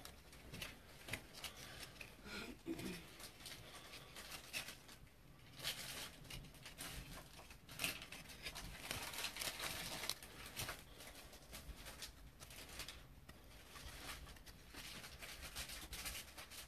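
Faint, irregular rustling and scraping of 2014 Topps Stadium Club baseball cards being slid over one another and flipped through by hand.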